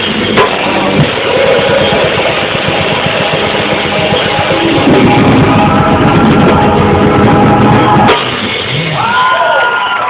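Live band playing loud, dense music with drum kit and guitar. About eight seconds in it thins out to a few sliding, held notes.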